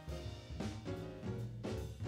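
Background music with a steady beat and sustained pitched notes.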